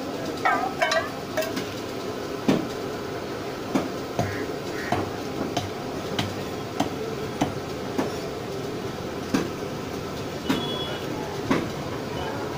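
Knife strokes scraping the bristles off a scalded pig's hide, each stroke a sharp short knock, roughly one every half second to a second.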